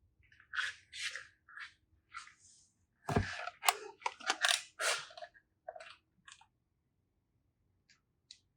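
Slime being squished and worked by hand: a run of short crackly squelches and clicks, busiest a few seconds in, then fading to a single click near the end.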